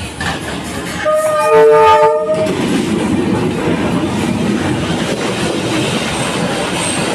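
A train's horn sounds once for about a second and a half, then the train rolls past with a steady, heavy rumble of wheels on the rails.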